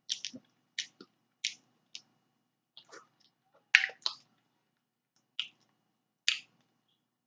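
Mouth smacking while chewing food: a dozen or so short, wet smacks at an irregular pace, the loudest about four seconds in.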